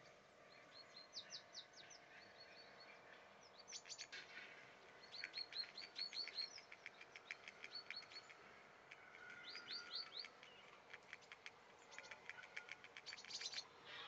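Small songbirds chirping faintly, in quick runs of short, high, falling notes that repeat with short pauses between them.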